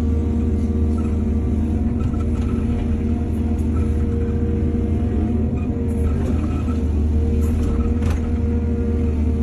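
Heavy diesel engine of an excavator loading soil onto a truck, running steadily with a deep drone, with a few faint knocks in the second half.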